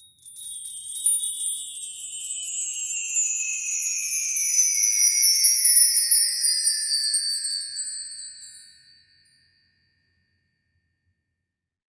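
Magic wand sound effect made from wind-chime sounds: a high, glittering shimmer of chimes that glides slowly downward in pitch. It fades out about nine seconds in.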